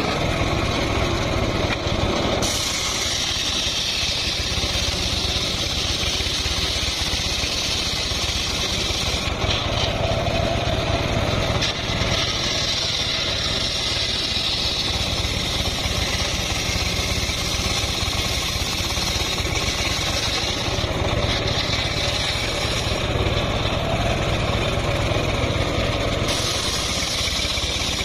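Homemade engine-driven circular sawmill running steadily while its spinning blade rips a mahogany log lengthwise into planks. The engine gives a constant low rumble, and the high-pitched cutting noise strengthens and eases several times as the log is pushed through.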